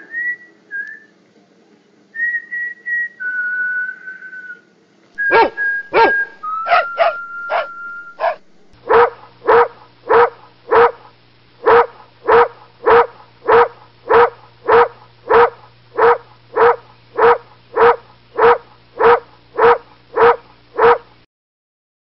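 A few short whistled notes, then a dog barking: first a few irregular barks between whistles, then an even run of barks, about two a second, that cuts off suddenly.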